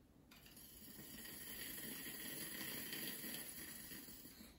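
One long inhalation through a nostril via a Brunnmatt glass inhaler: air hisses as it is drawn through the essential oil inside, which bubbles faintly. It starts about half a second in, swells, then fades near the end.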